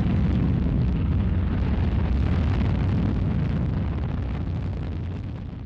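Space Shuttle launch: the rocket engines and solid rocket boosters at liftoff make a loud, dense, deep rumbling noise that fades away near the end.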